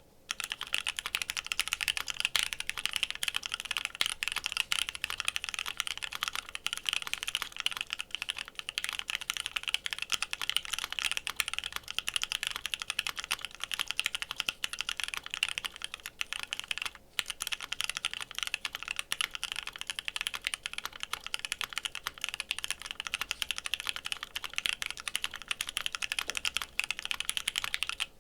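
Custom Savage65 mechanical keyboard with lubed, filmed Alpaca linear switches on an FR4 plate and PBT keycaps being typed on continuously: a fast, dense stream of key strokes, with a brief pause about 17 seconds in.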